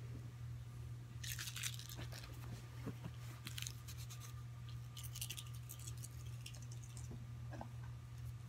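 Faint scratchy rustling in a few short bursts over a steady low hum.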